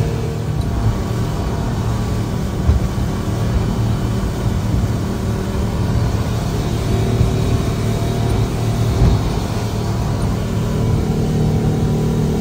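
Motorboat's engine running steadily under way, heard from inside the boat's cabin, with a low rumble underneath.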